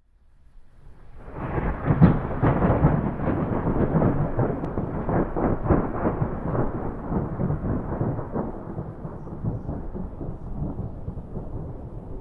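A thunderclap: it swells up out of silence over the first second or so and peaks about two seconds in. It then rumbles and crackles for several seconds and slowly dies away.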